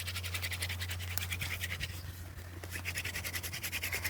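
Wooden hand-drill spindle spun fast between the palms, grinding into the hearth board: a rapid, rhythmic scratching as the wood is worn into hot char powder on the way to an ember. It eases off briefly a little past halfway, then picks up again.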